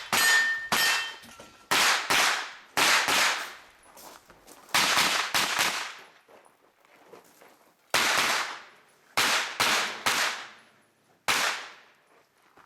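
Pistol-caliber carbine (9mm) fired in quick pairs and strings of two or three shots, about fifteen in all, with short pauses between groups. Just after the first shot, a steel target rings for about a second and a half.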